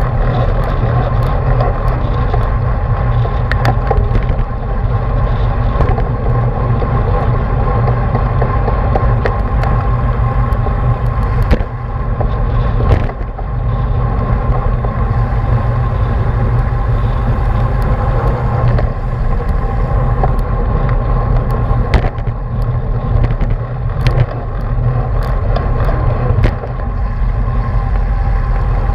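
Steady wind rush and road rumble on a camera riding with a road bicycle at race speed, heavy and low, with scattered sharp clicks throughout.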